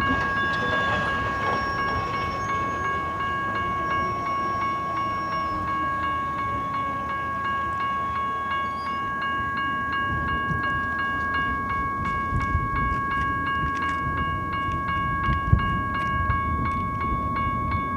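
Railroad grade-crossing warning bell ringing with rapid, even strikes while the gates lower. From about ten seconds in, the low rumble of approaching locomotives builds underneath.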